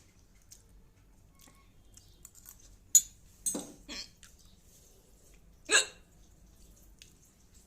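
Woman hiccuping: a few short, sudden hiccups a couple of seconds apart, the loudest about three and six seconds in.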